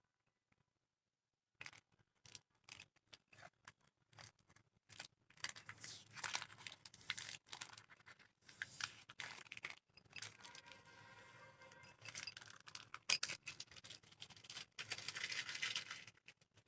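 Paper labels and neck wrapping being peeled and torn off a glass bottle: irregular tearing, crinkling and scraping with small clicks, after a near-silent start, and one sharper knock about three-quarters of the way through.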